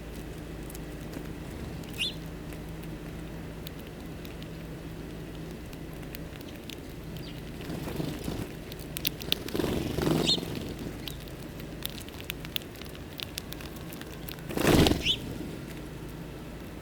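Small birds feeding, giving three brief high chirps, with many light clicks and patters of pecking and shuffling and two louder rustling bursts in the second half.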